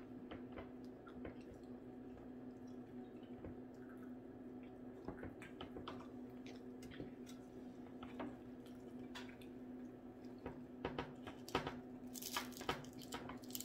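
Close-up eating sounds: wet chewing and fingers pulling apart fried ocean perch and french fries, with soft clicks and crackles that grow busier near the end. A steady low hum runs underneath.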